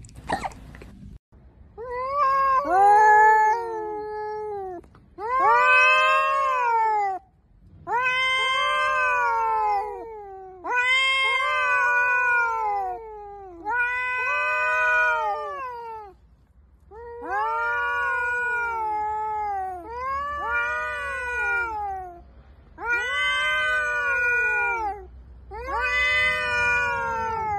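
Two domestic cats in a face-off, yowling: long drawn-out caterwauls that rise and then fall, about nine of them, each lasting around two seconds. This is the threat yowling of a territorial standoff between cats.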